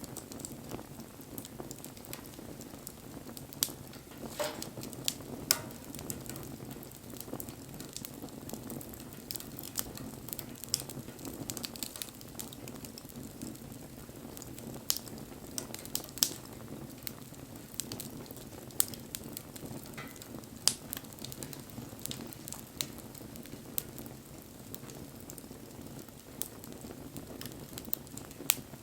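Wood bonfire burning: a steady low rush of flame with irregular crackles and sharp pops, a few of them much louder than the rest.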